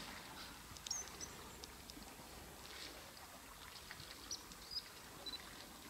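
Faint outdoor ambience: a low steady background hiss with a few short, high bird chirps scattered through it.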